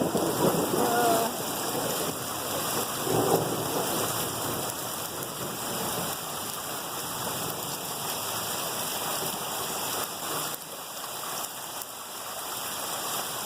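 Heavy rain falling steadily in a thunderstorm, with thunder rumbling, loudest in the first few seconds.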